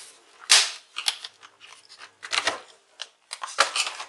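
Plastic laptop parts being handled: a few sharp clicks and rustles, about one a second, as connectors and covers are pressed and locked into place.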